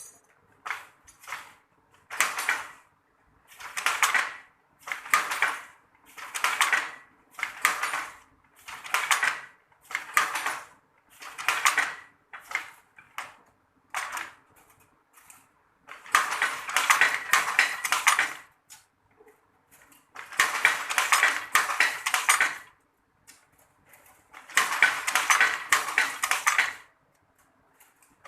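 Traditional hand-operated loom weaving sarong cloth: sharp rhythmic clacking about once a second, then three longer runs of rapid clattering with short pauses between.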